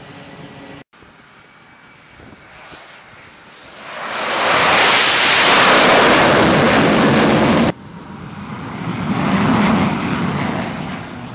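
F/A-18 Super Hornet jet engines on a carrier flight deck. A rising engine whine builds into a very loud roar as a jet launches off the catapult; the roar lasts about four seconds and cuts off suddenly. A second jet's roar then swells and fades as it taxis past.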